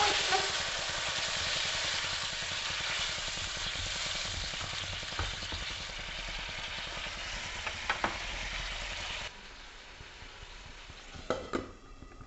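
Curry masala with water just added sizzling in a non-stick kadai as it is stirred with a slotted metal spatula, with a couple of light taps about eight seconds in. The sizzling cuts off abruptly a little after nine seconds, and near the end the glass lid clinks several times as it is set on the pan.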